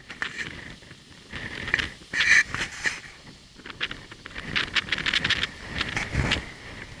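Irregular footsteps crunching and scraping on a stony mountain path, with the loudest steps about two seconds in.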